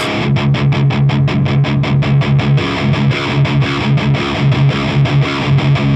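Heavily distorted electric guitar played through the dirty channel of an Orange Rockerverb 100 MKIII tube amp, with the gain turned up to about 2 o'clock. It plays a fast, rhythmic metal riff of short, evenly repeated low notes.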